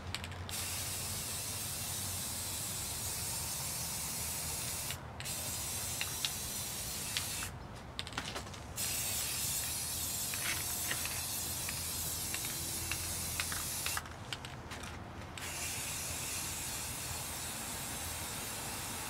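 Aerosol spray-paint can hissing in long steady bursts, broken by three short pauses, as a coat of orange paint goes onto a clear Lexan RC car body.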